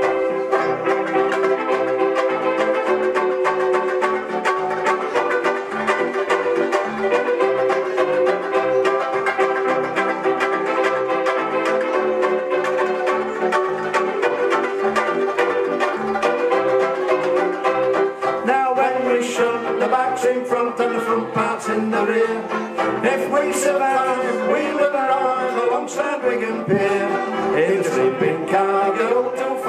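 Two banjo ukuleles (banjoleles) strummed in a brisk, even rhythm, accompanying male voices singing.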